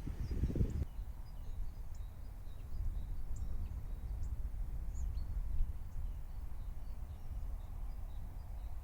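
Open-air ambience: low wind rumble on the microphone, with a few faint, short bird chirps scattered through it.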